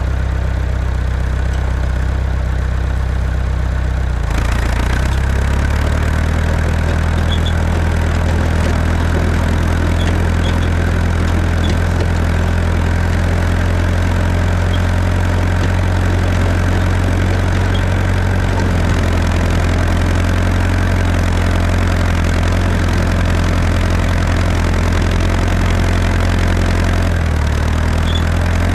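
Tractor engine running steadily while plowing compacted snow and ice, picking up speed about four seconds in and dipping briefly near the end.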